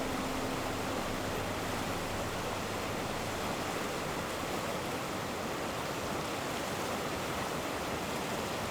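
Steady rushing of water, an even hiss with no separate events.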